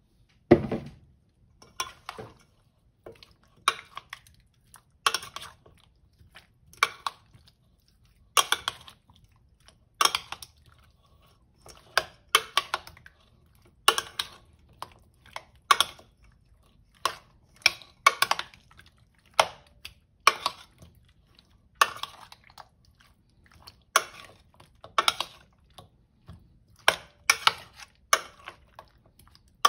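Metal spoon stirring chunks of raw pork belly in marinade in a stainless steel bowl: repeated short scrapes and clinks of the spoon against the bowl, with the wet meat being turned, about one stroke a second.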